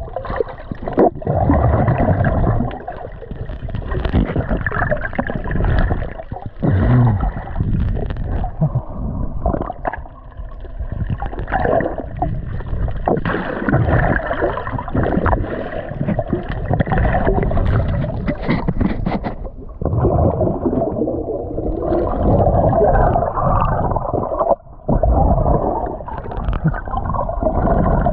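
Muffled underwater noise heard by a submerged camera: water rushing and gurgling past it, with many short knocks and clicks. The sound is dull, with little treble.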